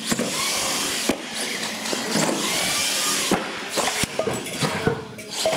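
Radio-controlled monster truck driving over wooden ramps: motor whine and tyre noise with several sharp knocks as it hits and lands on the ramps, the loudest about a second and about three seconds in.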